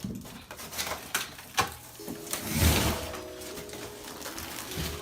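Knocks, clicks and a louder scraping rustle about two and a half seconds in as a boxed, rolled foam mattress is handled and pulled out of its cardboard box. Soft background music starts about two seconds in.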